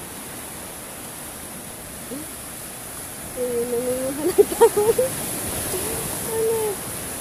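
Sea waves surging over a rocky breakwater: a steady rush of surf. About halfway through, a person's voice rises above the surf for a few seconds, without clear words.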